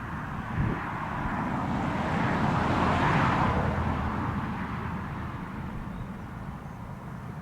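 A vehicle passing, its rushing noise swelling to a peak about three seconds in and then fading away, with a soft thump near the start.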